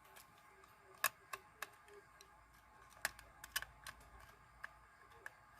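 Small screwdriver driving screws into the tender body of a model 9F locomotive: faint, irregular clicks and ticks.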